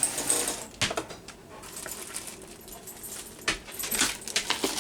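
Cotton candy machine parts and packaging being handled: rustling with several sharp clicks and clinks of small hard plastic pieces, strongest at the start, about a second in, and near the end.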